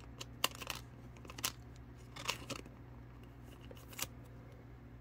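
Trading cards and a clear plastic card sleeve handled by hand: about half a dozen short, scattered crinkles and clicks.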